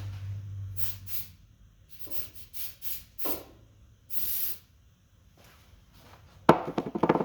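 A ratchet wrench clicks in a quick run near the end as it is swung back to turn the threaded rod of a homemade coil spring compressor, with the spring compressing steadily. Before that come several short hissing puffs.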